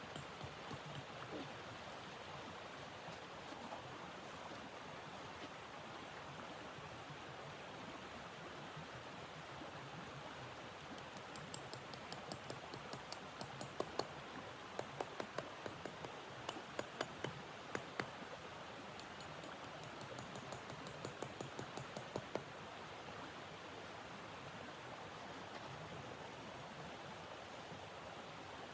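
Steady rushing noise of blizzard wind, with a run of sharp, irregular crackles and clicks from about a third of the way in until about three quarters of the way through.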